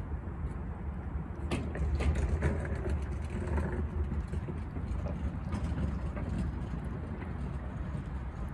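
A cat with stomatitis eating canned tuna up close, licking and chewing with small wet clicks and smacks, thickest for a couple of seconds near the start, over a steady low rumble.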